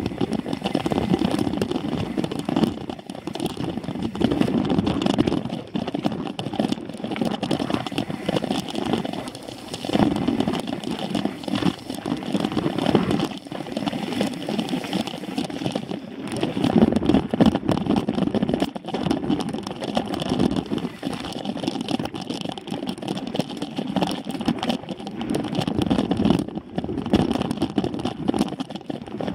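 Mountain bike ridden along a rough dirt trail: a steady rumbling noise of tyres on dirt and the bike rattling over bumps, rising and falling every second or so, with wind buffeting the camera microphone.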